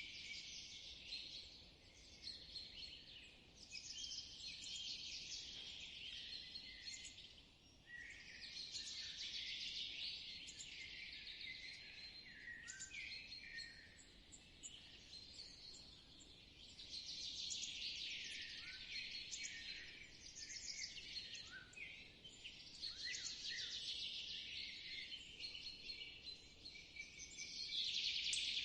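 Spring forest ambience: several songbirds singing in overlapping phrases a few seconds long, swelling and fading, over a faint steady background hiss.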